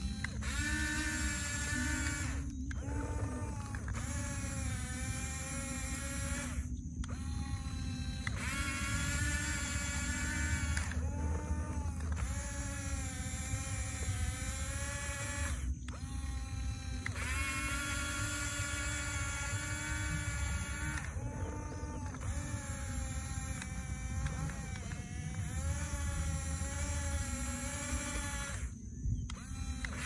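Huina 1569 RC bulldozer's electric drive motors whining as it pushes sand, spinning up with a rising pitch, holding, then stopping in several short pauses before starting again, over a steady low rumble.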